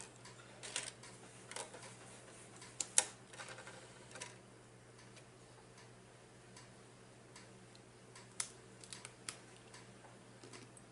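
Scattered faint clicks and small crunches of someone chewing food at irregular intervals, over a steady low hum.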